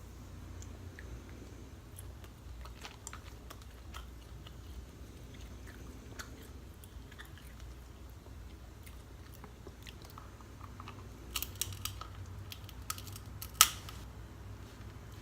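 Eating snow crab legs: chewing and biting with small clicks and crunches of shell, a quick run of sharp cracks near the end and then one loud sharp crack of shell.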